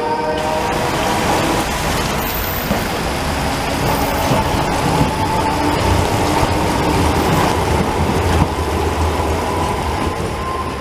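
Articulated low-floor tram rolling past on wet tracks, its low rumble swelling about six seconds in and fading near the end, over a steady hiss of rain and wet street.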